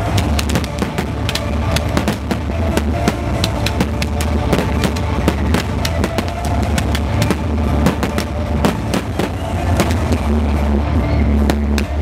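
Fireworks display: a dense run of sharp bangs and crackles from shells and ground fountains, over loud music with a heavy drum beat.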